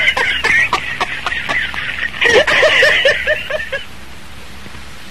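A person laughing in quick repeated "ha-ha" bursts, in two bouts, stopping about a second before the end and leaving only a steady hiss.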